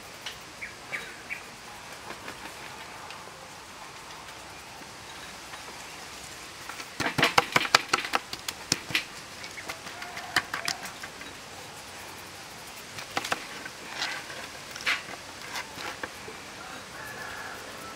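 A raw salmon head being handled and rubbed with salt on a wooden cutting board: wet slaps and sharp clicks. The handling comes in a dense burst about seven seconds in, with shorter bursts later.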